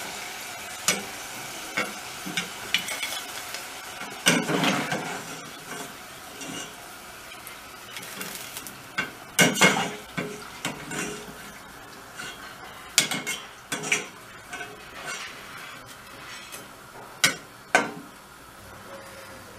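Potato fries sizzling in hot oil in a stainless steel pot, while a metal slotted skimmer stirs them and lifts them out, clinking and scraping against the pot and plate now and then. The sizzle grows quieter toward the end.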